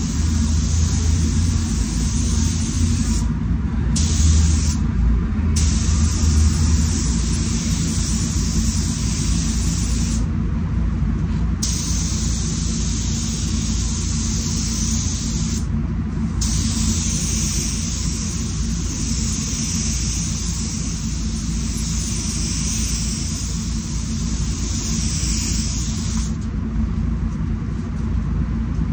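SATA Jet 5000 RP spray gun hissing as it sprays paint, stopping briefly about five times as the trigger is released, over the steady low rumble of the paint booth's air system.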